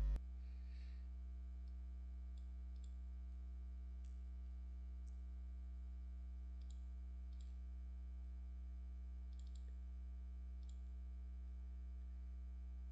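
Steady low electrical mains hum picked up by the recording microphone, with faint computer mouse clicks at irregular intervals, about ten of them.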